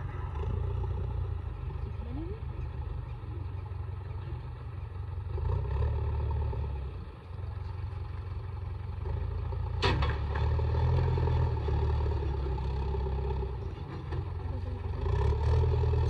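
JCB 3DX backhoe loader's diesel engine running as the machine drives, working harder in several swells, with a sharp knock about ten seconds in.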